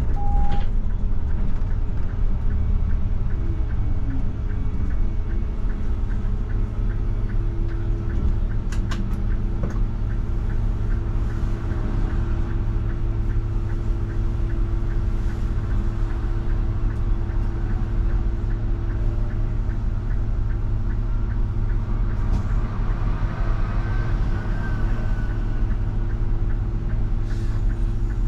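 Mercedes-Benz Citaro CNG city bus's natural-gas engine running, heard from the driver's cab as the bus slows and then stands at a red light: a steady low rumble with a constant hum.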